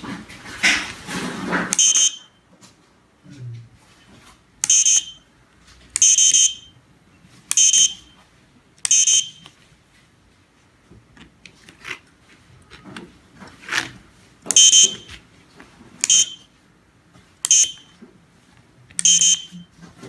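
Piezo buzzer on a 433 MHz remote-control decoder test board beeping, about nine short high beeps in two runs with a pause in the middle, each beep marking a received remote signal.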